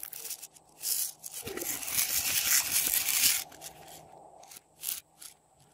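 Hands handling small plastic items: a few sharp clicks, then a crinkling, scraping rustle lasting about two and a half seconds from about a second in, then a few more clicks.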